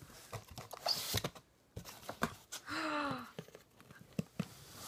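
Corrugated cardboard shipping box being opened by hand: flaps bent back and rubbed, with scattered light scrapes, rustles and knocks.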